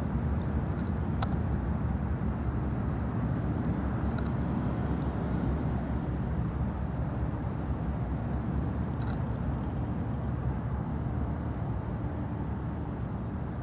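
Steady low rumble of outdoor background noise, with a couple of brief faint high-pitched chirps or clicks.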